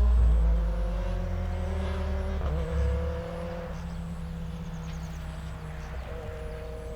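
A motor vehicle engine running under a low rumble. Its pitch rises slowly and drops back twice, about two and a half seconds in and again near the end, like gear changes while accelerating.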